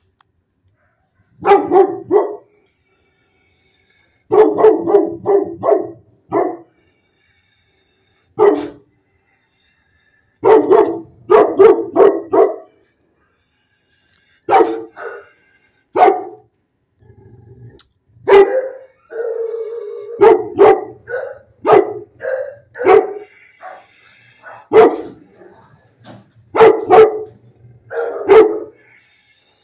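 Dog barking in clusters of several sharp barks with silent gaps of a second or two between them. The barking comes more continuously in the second half, with one longer drawn-out call a little past the middle.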